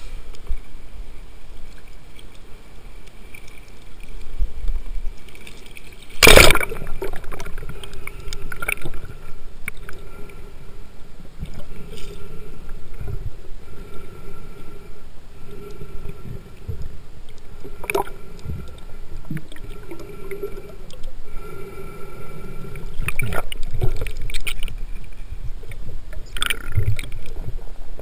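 Water sloshing and gurgling around a spearfisher's camera going from the surface to under water, with one loud splash-like burst about six seconds in and scattered knocks and clicks later on.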